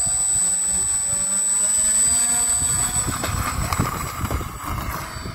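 Electric motor and propeller of a radio-controlled model plane running, a steady whine with slowly drifting pitch, growing weaker and rougher over the last couple of seconds.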